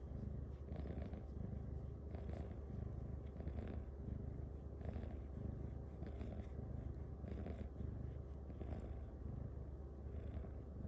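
Silver Bengal cat purring steadily while its head is stroked, a low continuous rumble with a breathy swell about every second and a quarter as it breathes in and out.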